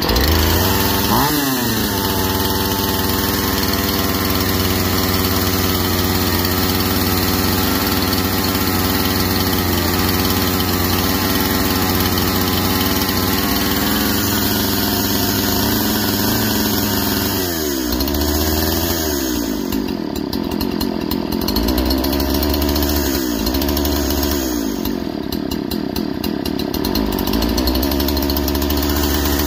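Poulan Pro 255 two-stroke chainsaw running steadily, its pitch climbing and falling back a few times as the throttle is blipped, then stopping near the end. The owner finds something sticky in the throttle, but says it runs good.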